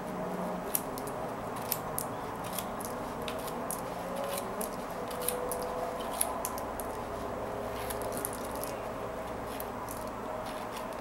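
Plastic pony beads of a peyote-stitch kandi panel clicking and rattling as the string is worked through them by hand, with many small, irregular sharp clicks.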